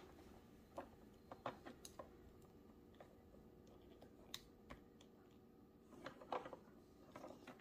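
Near silence with faint, scattered clicks and taps from a small plastic toy pony being handled on a wooden table while a little plastic crown is fitted to it.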